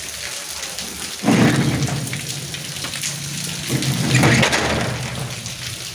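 Steel rolling shutter of a shop being pulled down: a rattling rumble that starts suddenly about a second in, eases, and swells again around four seconds.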